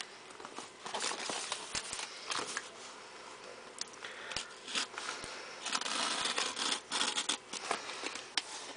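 Cardboard shipping box being handled and shifted by hand on a wooden floor: scattered taps, rustles and scratches, with a longer stretch of scraping about six seconds in.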